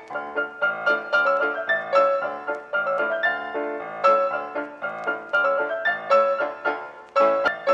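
Background piano music, with notes struck several times a second.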